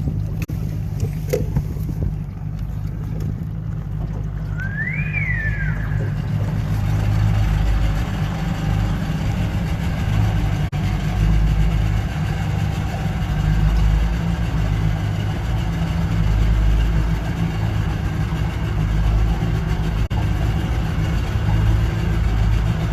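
Boat motor running steadily at low speed with a deep, even drone. A brief high chirp rises and falls about five seconds in.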